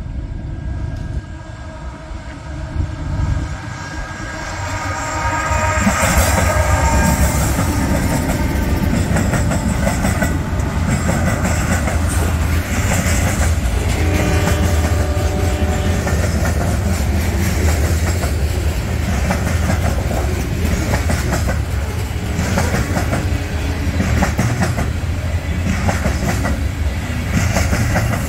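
Norfolk Southern mixed manifest freight train passing close by. The diesel locomotives' rumble and steady tones grow louder over the first six seconds as they come up and pass. After that, covered hopper cars roll by with a steady rumble and rhythmic clickety-clack of wheels over the rail joints.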